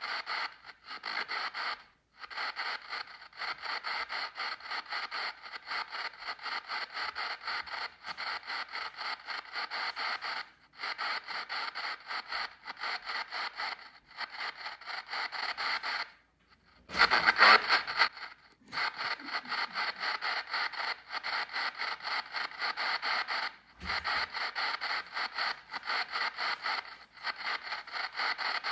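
P-SB7 spirit box sweep radio played through the APF-D processor: choppy radio static and snippets stepping several times a second. It drops out to silence in a few short gaps, where the noise gate set at −14 dB closes. A louder burst comes about two-thirds of the way through.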